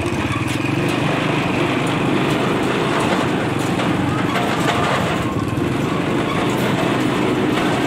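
Engine of a small open vehicle running steadily as it drives across grass.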